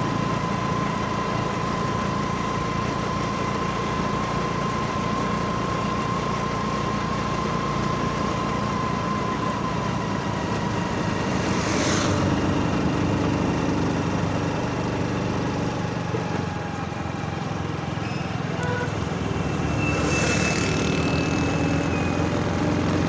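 A vehicle engine runs steadily while driving along a road, with a steady whine above it. Two brief rushing swells pass, about halfway through and near the end.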